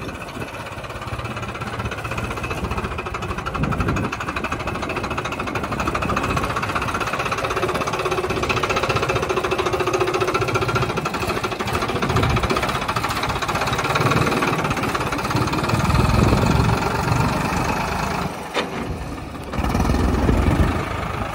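Farmtrac 60 T20 tractor's three-cylinder diesel engine running with a knocking clatter, picking up in loudness about two-thirds of the way through and again near the end after a brief dip.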